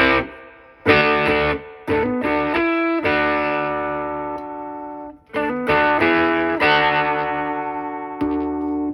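Electric guitar played through a boost pedal on its first gain setting into a solid-state Fender Studio 85 amp: a series of strummed chords, one about three seconds in left to ring and fade for around two seconds before the strumming picks up again.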